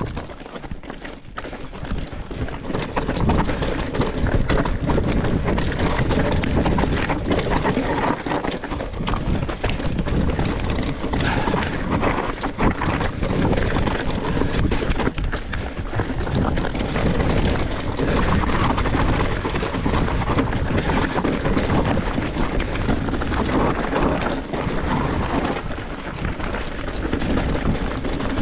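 Mountain bike descending a loose, rocky trail: wind rushing over the camera microphone, tyres crunching over gravel and rock, and the bike rattling with many short knocks over the bumps. It grows louder over the first few seconds, then holds steady.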